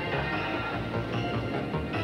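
Background music: sustained pitched notes over a pulsing bass line.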